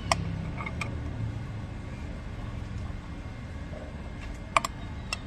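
A few sharp metallic clinks from a spanner on the wheel nuts as an auto rickshaw's spare wheel is tightened, heard against a steady low rumble.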